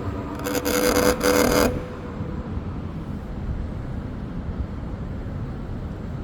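Extreme Bull Rocket electric unicycle grinding with a steady whine while ridden at speed, stopping about a second and a half in and leaving a low rumble. The grinding appears at 25 km/h and above and is a firmware fault, cured by a firmware update.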